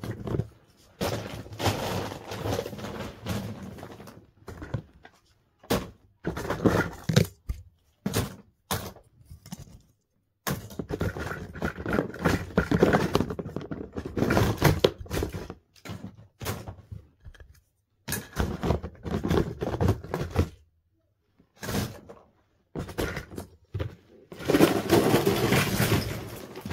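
Small plastic Lego minifigures and pieces being handled and dropped into a box: irregular bursts of clattering and rummaging with sharp clicks, thunks and scrapes, broken by a few short pauses.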